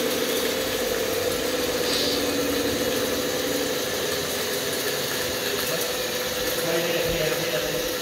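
Radio-controlled scale model wheel loader with a sweeper brush attachment running as it drives: a steady mechanical hum with a constant whine.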